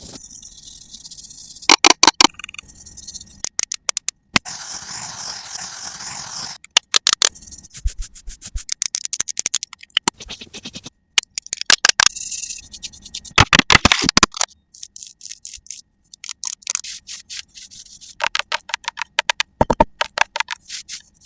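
ASMR makeup sounds of tools worked over a watermelon's rind: quick runs of rapid tapping and clicking, alternating with stretches of scraping and brushing, with short pauses between.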